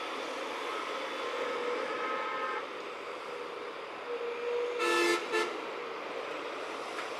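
A vehicle horn sounds twice about five seconds in, a half-second honk followed by a short toot, over a steady rumble of engines and traffic.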